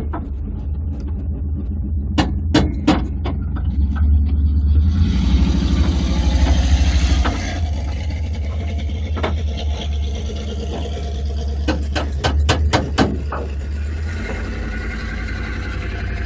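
An off-road 4x4's engine running steadily as it drives along a gravel track, with tyre noise on the gravel and scattered sharp clicks and knocks, clustered about two seconds in and again around twelve seconds.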